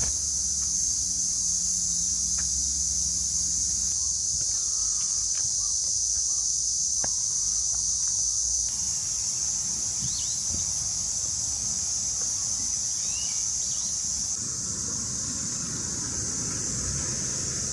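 A steady, high-pitched drone of summer insects, with a few short bird chirps about ten and thirteen seconds in.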